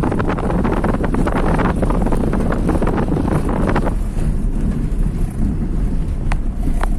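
Wind buffeting the microphone: a loud low rumble with crackling pops, easing somewhat about four seconds in, with two sharp clicks near the end.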